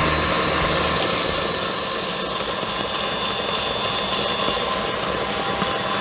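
KitchenAid Classic stand mixer running steadily at high speed, its whisk beating thick divinity candy of cooked sugar syrup and egg whites in a steel bowl.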